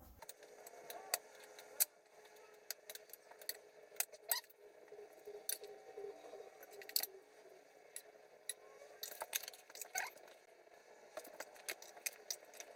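Faint, scattered clicks and clinks of a metal spoon or ladle against glass food containers, over a low steady hum.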